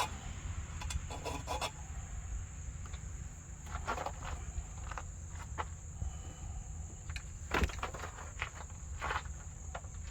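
Scattered footsteps and rustling over a steady high-pitched insect drone.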